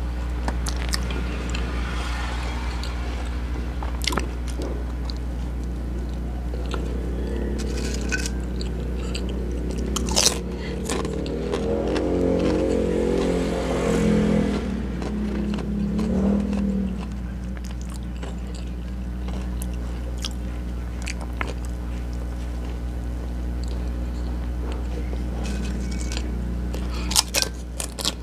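Close-miked crunching and chewing as crisp chips and a burger are bitten and eaten, with sharp crisp bites about ten seconds in and again near the end. A pitched drone swells and fades in the middle, over a steady low hum.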